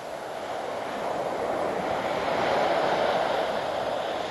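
Ocean surf washing up on the beach: a steady rushing wash that swells to its loudest a few seconds in and then eases.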